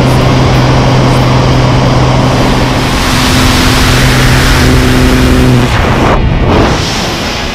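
Light aircraft's propeller engine droning steadily under loud wind rush through the open door. About six seconds in, the drone drops away as the tandem pair leaves the plane, leaving only the rush of freefall wind.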